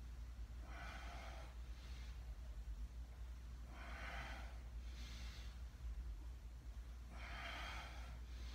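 A man breathing, faint: three long breaths about three seconds apart, each followed by a shorter, fainter one, over a steady low hum.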